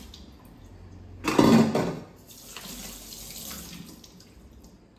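Water running from a kitchen tap into a sink as a pot is rinsed by hand. About a second and a half in, a louder splash lasts under a second.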